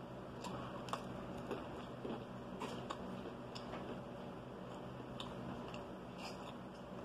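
Close-up eating sounds: quiet chewing with irregular small clicks and crunches, over a faint steady hum.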